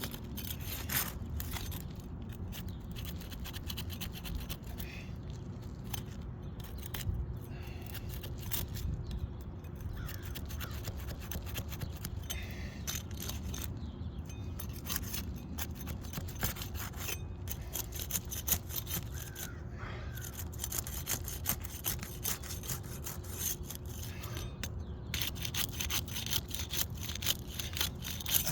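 Flat trowel scraping and prying under old asphalt roof shingles, trying to break their adhesive seal, in rough repeated strokes with short pauses.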